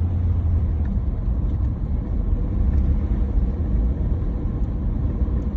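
Van driving on a road, heard from inside the cab: steady engine and road noise, a low drone.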